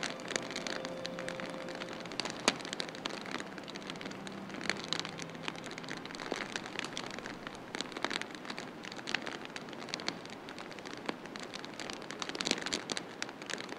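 Steady heavy rain with many sharp drop ticks.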